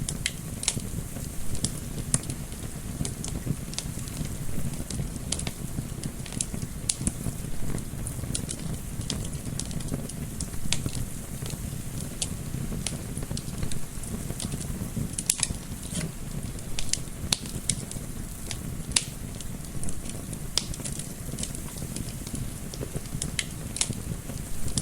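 Wood fire crackling, with frequent irregular sharp pops and snaps over a steady low rumble of burning and soft wind.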